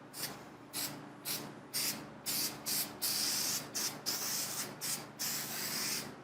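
3M Super 77 aerosol spray adhesive hissing from the can in a run of short bursts, about two a second, with a few longer passes. It is being sprayed onto both the cloth headliner and the car's roof surface so the glue can tack up.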